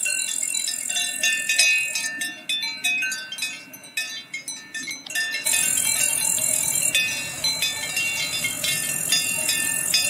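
Several cowbells on grazing cattle clanging irregularly at different pitches. About halfway through, a low rushing noise joins them.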